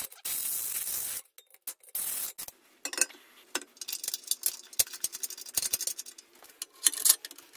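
Cordless drill running a hole saw in steel in three short bursts over the first two seconds. Then a run of light metal clinks, ticks and scrapes as a wheel hub and its shaft are handled in the steel headstock.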